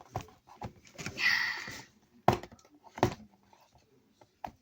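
A gift package being handled and worked at while being opened: sharp knocks and clicks, with a brief rustle about a second in. The package is resisting being opened.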